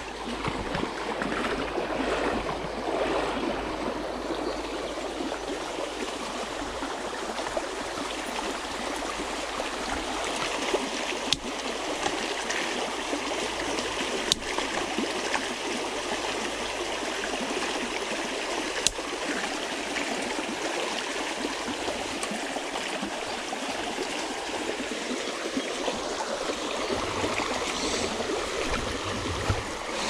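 Creek water running steadily over rocks, close by, with three sharp ticks about a third, halfway and two-thirds of the way through.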